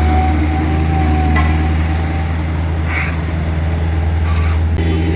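Heavy diesel engine running steadily, a deep constant hum with a few light clinks and knocks over it.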